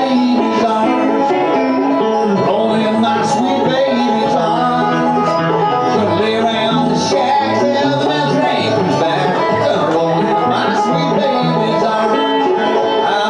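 Five-string banjo and electric guitar playing a bluegrass tune live, with the banjo picking out in front.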